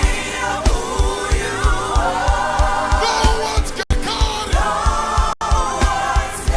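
Live gospel worship music: voices singing over a band with a steady kick-drum beat. The sound cuts out for an instant twice in the second half.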